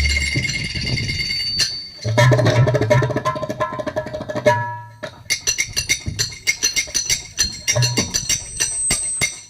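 Glass struck as a percussion instrument in a musical rhythm: bright ringing tones at first, then a fast run of sharp taps with high ringing notes through the second half.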